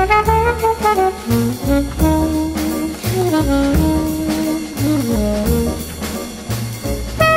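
Background jazz music: a brass melody with some sliding notes, over bass and drums.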